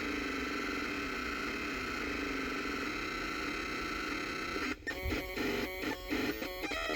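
Ground-loop interference from a SanDisk Sansa Fuse MP3 player's power draw, heard through a trailer stereo's AUX input: a steady electronic whine and buzz made of several tones. Near the end it breaks into a fast, stuttering chatter of pulses.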